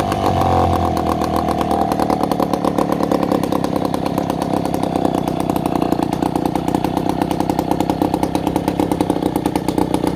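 Hoffco two-stroke chainsaw engine running. It comes off a rev in the first couple of seconds and settles into a steady, evenly pulsing idle.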